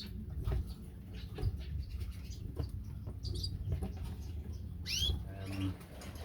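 Caged finches moving about, with many light ticks and scuffles, and one short high call about five seconds in, over a low steady hum.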